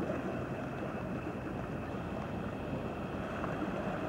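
Steady riverside ambience: a wide river's water and wind on the microphone, with a faint steady hum over it.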